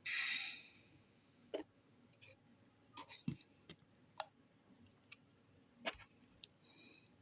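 Slime being handled and pressed into a container: a short squelch at the start, then scattered small clicks and pops.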